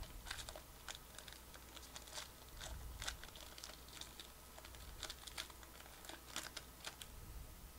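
Foil trading-card pack being peeled and torn open by hand: faint, irregular crinkling and crackling of the foil wrapper.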